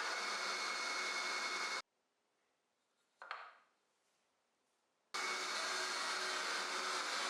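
Steady whir of a power tool working wood. It cuts off abruptly about two seconds in. A brief scrape follows about a second later, and the whir resumes just after five seconds.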